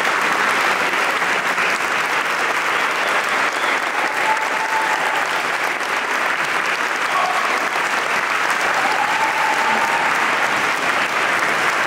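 A large audience applauding, with steady, dense clapping that keeps going without a break.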